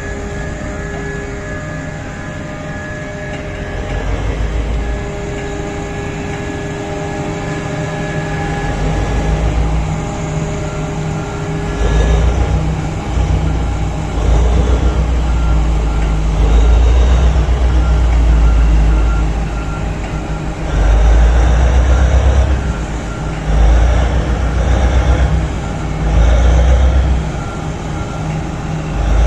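Komatsu PC4000 hydraulic mining excavator digging: a steady heavy drone at first, then the machine surges under load again and again as the bucket scrapes and grinds against poorly blasted, near-solid rock.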